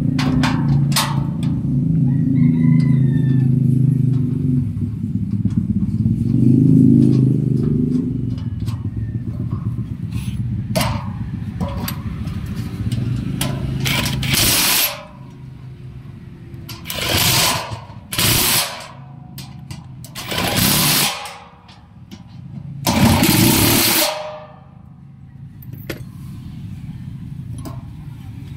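A cordless impact driver runs in four short bursts of about a second each, driving home the bolts of a satellite dish's LNB arm bracket. Before that, through the first half, a motor vehicle's engine runs close by as a low rumble.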